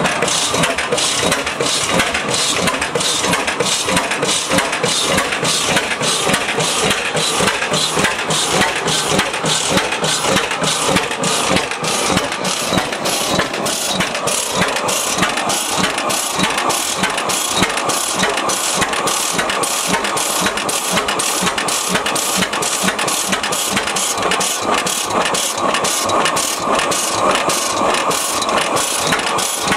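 1905 Reid 15-horsepower hot-tube two-cycle oilfield engine running steadily, firing in an even rhythm of about two beats a second.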